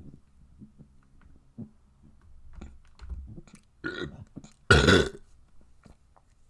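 A person burping: a shorter burp about four seconds in, then a loud, longer one just under a second later.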